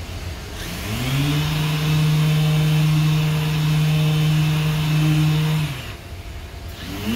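Random orbital sander with a dust-extraction hose, sanding body filler on a car panel. It spins up about a second in and runs at a steady pitch with an airy hiss. Near the end it winds down, then spins up again just before the end.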